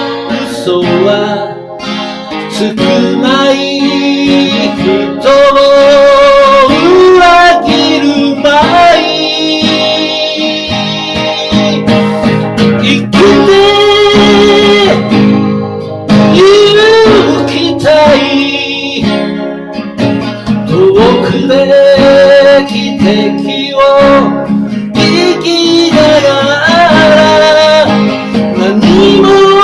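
Music: a slow ballad sung over strummed acoustic guitar, the voice holding long notes with vibrato.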